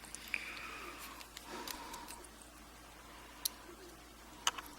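Pin stacks being taken out of the back of a six-pin rim cylinder: faint scraping with a few small, sharp metallic clicks, a cluster of them near the end.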